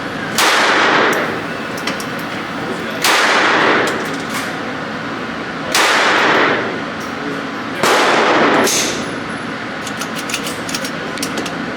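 Four gunshots at an indoor shooting range, fired one at a time about two to three seconds apart, each echoing briefly off the walls.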